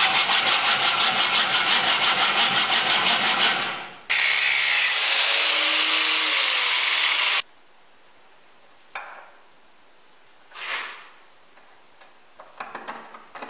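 Hacksaw blade cutting a hardened steel drill-shank axle clamped in a vise, in rapid even strokes for about four seconds. Then a loud steady harsh noise for about three seconds that starts and stops abruptly, followed by a few faint clinks.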